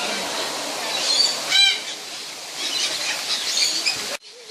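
Aviary parrots chattering and screeching, with one loud harsh squawk about one and a half seconds in. The sound cuts off suddenly near the end.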